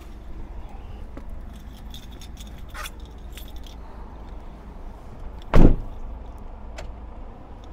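Truck park ambience: a low steady rumble with light clicks and rattling from the handheld camera rig and walking. One loud thump comes about five and a half seconds in.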